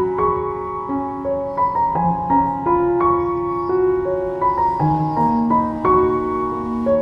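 Background music: a slow keyboard melody of held notes stepping from pitch to pitch about every half second.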